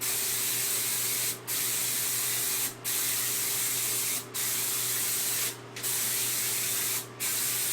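Compressed-air spray gun spraying concrete sealer: a steady hiss of air and atomised sealer with a low hum underneath, briefly stopping about every second and a half as the trigger is let off between passes.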